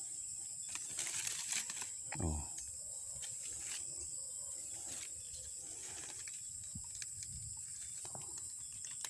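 A steady, high-pitched chorus of insects in the forest undergrowth. About a second in, a plastic bag and dry leaves rustle as a handful of mushrooms is dropped in.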